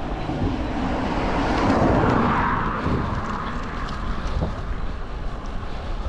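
A car passing close by: its noise swells to a peak about two seconds in, drops in pitch as it goes past, then fades. Wind buffets the microphone throughout.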